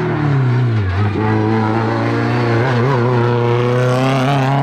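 Race car engine at a hillclimb. The revs drop sharply in the first second as the driver lifts off, then hold fairly steady and climb again near the end as the car accelerates away.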